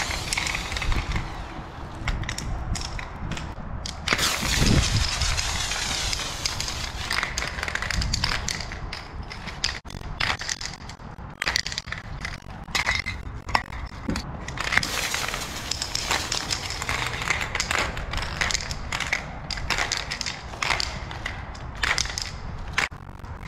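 Aerosol spray-paint cans fitted with fat caps, hissing in stop-start bursts of varying length as paint is sprayed onto a wall, with sharp clicks and crackles between the bursts.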